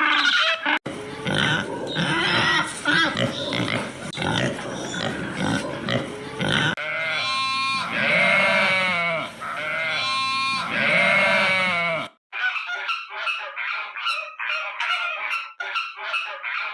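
A run of farm-animal calls in three parts. First, several seconds of dense, overlapping, noisy calls. Then two long drawn-out cries that rise and fall in pitch, and after an abrupt cut a rapid string of short, high calls.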